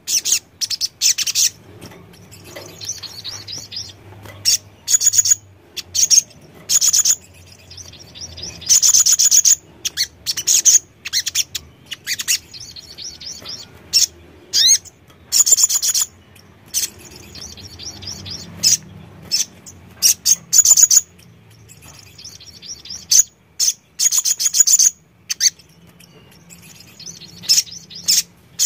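Caged male sunbird singing: bursts of rapid, very high-pitched twittering trills, each lasting well under a second, repeated again and again with short pauses between them.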